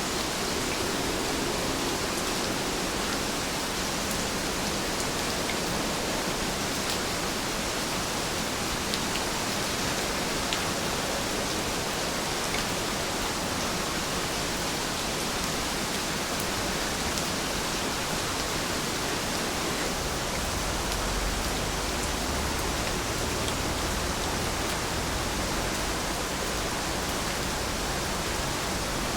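Steady rain falling, an even hiss with faint scattered drop ticks. A slight low rumble comes in about two-thirds of the way through.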